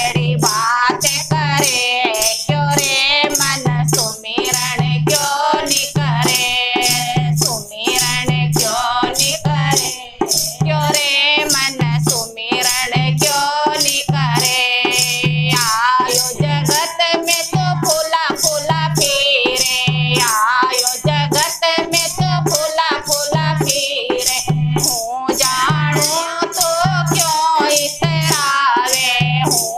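Women's voices singing a devotional bhajan to a dholak keeping a steady beat, with hand-held clappers rattling in time.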